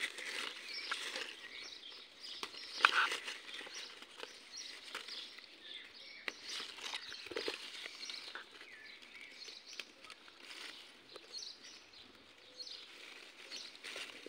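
Strawberry plant leaves and stems rustling and crackling as ripe berries are picked by hand, with a sharp click about three seconds in. Birds chirp faintly in the background.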